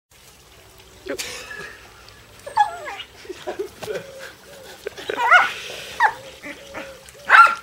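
Groenendael Belgian Shepherd dog making short excited whines and yelps about five times while playing frisbee, the loudest near the end.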